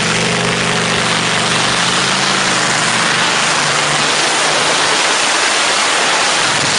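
Modified pulling tractor's engine at full throttle, hauling the weight sled down the track. Its pitched engine note gives way about two seconds in to a loud, dense roar as the tractor comes close.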